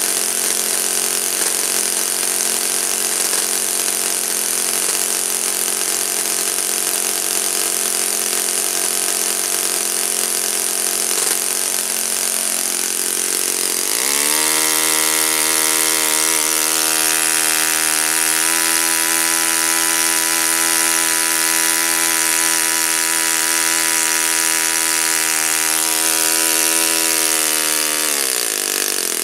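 Saito FA-56 four-stroke glow engine spinning a 12x6 wooden propeller during a tuning run: it runs steadily at a lower speed, then about halfway through is throttled up quickly to high speed, holds there steadily, and near the end drops back down.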